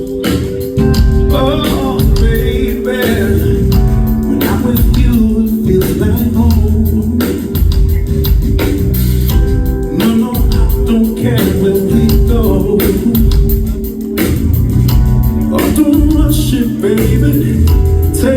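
Live band music: electric guitar, bass and drums playing under a male lead vocal.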